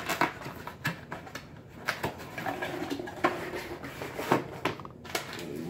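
Cardboard pizza boxes being handled and set down on a table: a run of short knocks, taps and scrapes of cardboard.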